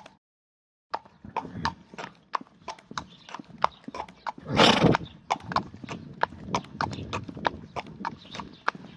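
Horse's hooves clip-clopping at a walk, about three steps a second, starting about a second in. Midway there is one loud, short blow through the nose, a snort or sneeze that the owner wonders may come from hay fever.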